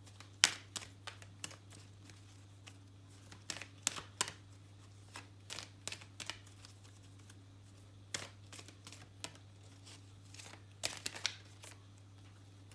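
Tarot and oracle cards being handled: scattered light clicks and taps of card stock in small clusters, over a steady low electrical hum.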